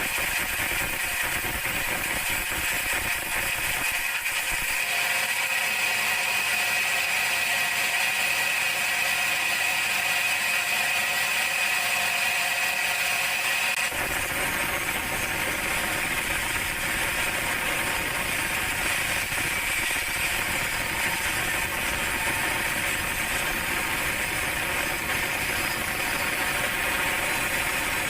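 Large sawmill band saw running through a teak log: a steady mechanical hiss with a high whine from the blade. About halfway through, a lower rumble joins in and stays.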